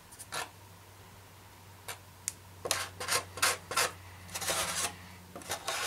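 Wooden stick scraping thick acrylic water gel across a polystyrene foam block: a run of short rubbing strokes, four quick ones in a row about halfway through, then longer strokes near the end.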